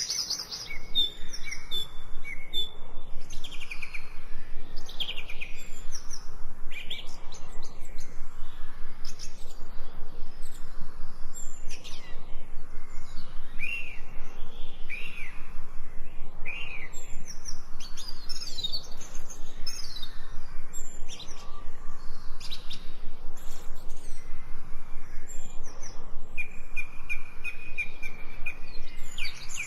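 Birds chirping and calling, with many overlapping short chirps and quick downward-sweeping whistles repeating throughout.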